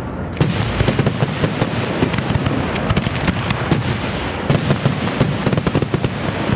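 Fireworks display: aerial shells bursting overhead in a dense, continuous run of bangs and pops. There is a short lull at the start, and a fresh surge of sharp reports about four and a half seconds in.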